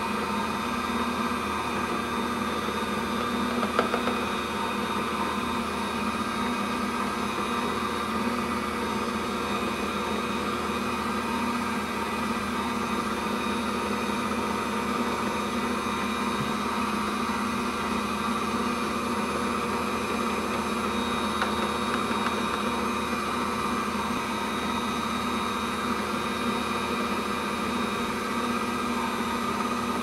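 Electric stand mixer's motor running steadily, its dough hook turning through dry flour, with an even whine over a hiss. A single short tap about four seconds in.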